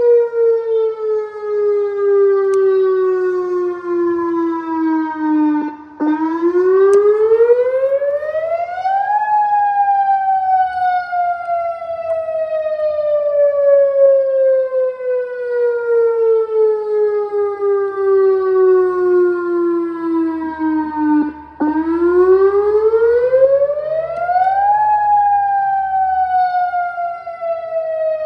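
Outdoor tornado warning siren sounding a wail during a test. Its pitch falls slowly, rises quickly about six seconds in, falls slowly again for about twelve seconds, then rises again about twenty-two seconds in, dipping briefly in loudness at the bottom of each rise.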